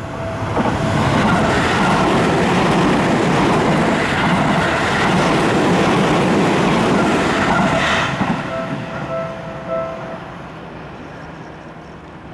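Seibu Shinjuku Line train passing over a level crossing, loud for about eight seconds and then fading. A crossing warning bell rings through it and stands out as the train noise dies down.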